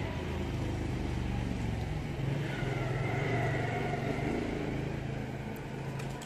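A motor vehicle's engine running nearby, a steady low hum that grows a little louder about halfway through.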